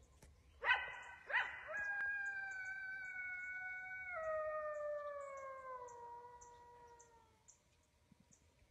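Coyote giving two sharp barks, then one long howl that holds its pitch, steps down and slides lower as it fades out.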